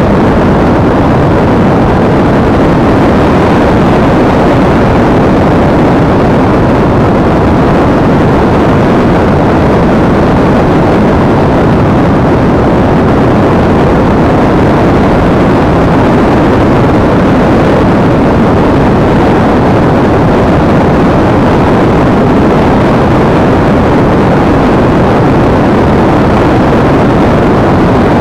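Steady loud rush of airflow over an action camera mounted on a Multiplex EasyStar RC foam model plane in flight, an even noise with no changes.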